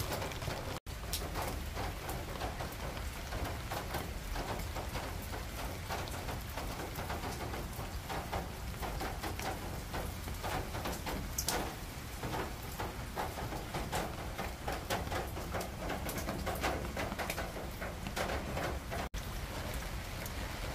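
Steady rain falling on a garden of potted plants, with many separate drops heard striking close by.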